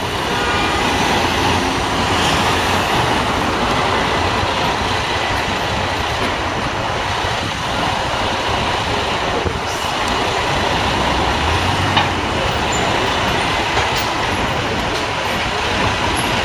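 Loud, steady city street noise: a heavy tow truck's engine running amid passing traffic. A single sharp knock about twelve seconds in, and a fainter one about two seconds later.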